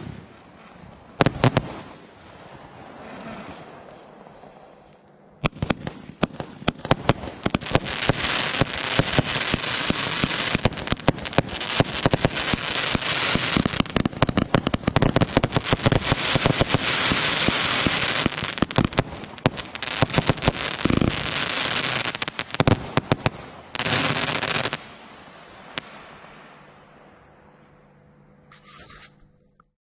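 Hermes 196-shot compound firework cake firing: a few single bangs at first, then from about five seconds in a dense, rapid volley of shots that runs for some twenty seconds before thinning out and stopping near the end.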